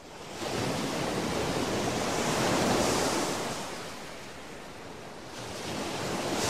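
Sea surf washing onto a rocky shore: the rush swells to a peak about three seconds in, eases off, then builds again near the end as the next wave comes in.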